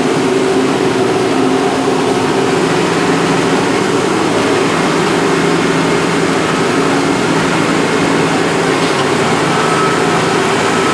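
A Bobcat skid-steer loader's engine running steadily, its pitch shifting slightly a few times.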